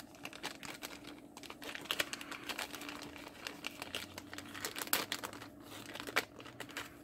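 Small clear plastic bag crinkling and crackling in irregular bursts as it is handled with a circuit-board kit inside.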